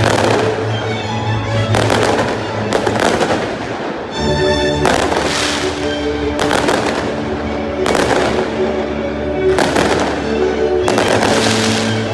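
Aerial fireworks bursting: a rapid string of about a dozen booms, each trailing off, over music with sustained tones.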